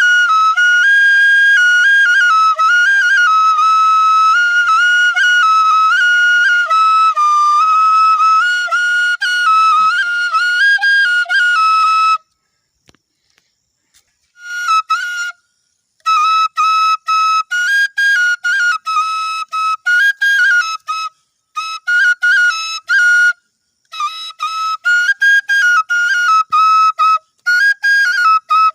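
Solo bansuri (bamboo flute) playing a high, ornamented melody that moves among a few close notes. It breaks off about twelve seconds in for a couple of seconds, then goes on in short phrases with brief pauses between them.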